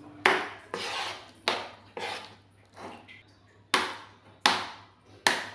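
Spatula scraping and slapping through a thick, dough-like milk mixture in a non-stick frying pan: a quick run of about eight strokes, each starting sharply and dying away, roughly one every two-thirds of a second. The mixture has cooked down to a dough that is coming away from the pan.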